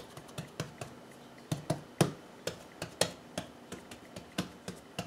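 Hands patting and pressing rounds of bialy dough flat on a silicone baking mat: a quick, slightly uneven series of light taps, about three a second.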